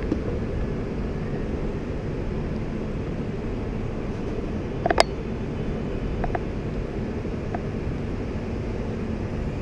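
Steady low rumble of a train station's platform ambience under a large glass roof, with stationary trains alongside. One sharp click about five seconds in, and a few faint ticks after it.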